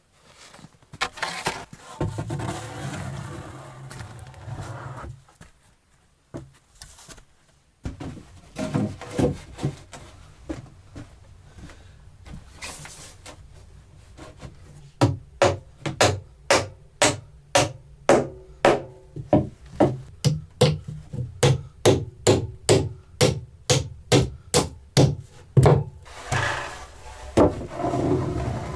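A tool striking wood over and over, an even run of sharp blows about two a second for some ten seconds, after scattered knocks and handling.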